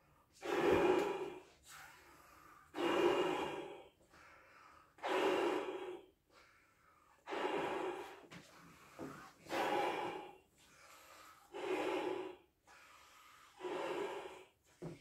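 A man blowing up a clear 24-inch Belbal latex balloon by mouth. Seven long, loud breaths come about one every two seconds, with fainter breath sounds between them.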